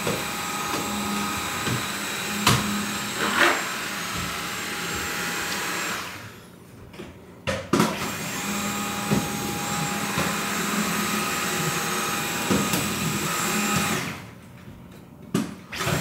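Dyson vacuum cleaner running with a steady whooshing motor whine, cutting out twice for about a second and a half each time before running again.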